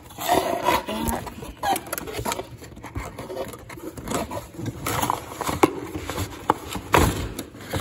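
Cardboard box and packaging being opened and handled by hand: flaps and inserts scraping and rustling, with several sharp knocks at irregular times.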